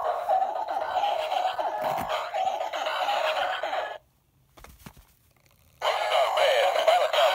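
Battery-powered plush gorilla toy playing its tinny electronic song through a small built-in speaker. The song cuts off about four seconds in, leaving near silence with faint handling sounds, then starts again a little before six seconds.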